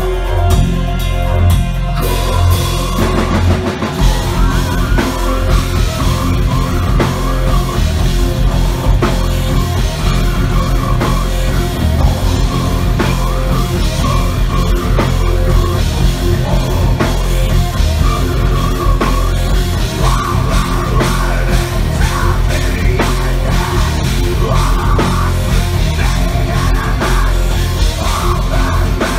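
Live heavy metal band playing loudly: distorted electric guitar, bass and drum kit. The full drums come in about two seconds in and drive a steady, dense beat.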